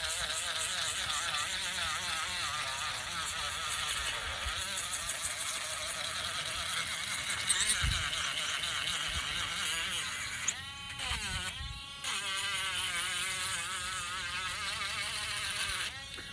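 Small hand-held electric sanding tool running, its high motor whine wavering in pitch as it bears on the workpiece. It dips and recovers a little past the middle and drops away near the end.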